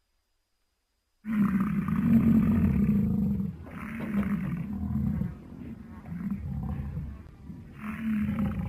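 Silence, then a deep bellow from a large bovine creature, a sound effect for the extinct giant buffalo Pelorovis oldowayensis blended from buffalo, bison, bull and aurochs calls. A long loud bellow is followed by several shorter, quieter calls and another louder one near the end.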